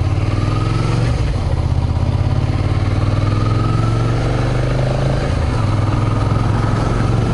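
Motorcycle engine running at a steady pace while riding, with a hiss of wind and road noise over it.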